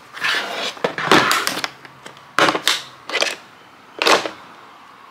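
Hard plastic tool case being opened and its contents handled: sharp clicks from the snap latches and lid, with short bursts of plastic scraping and cable rustling, four or five times.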